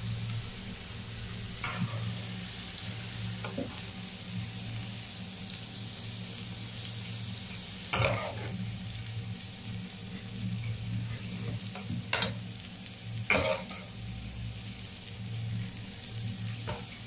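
A slotted metal spatula scraping and knocking in a wok as cooked egg and bottle-gourd bhaji is scooped out onto a plate, about six sharper strokes with the loudest about eight and thirteen seconds in, over a steady low hum and hiss.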